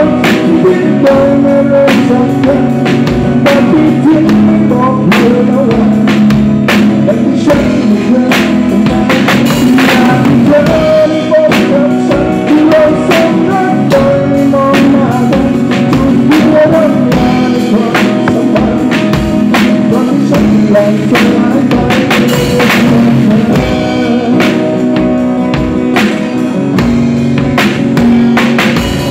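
A band playing live, with a drum kit struck hard and steadily throughout and singing over the music.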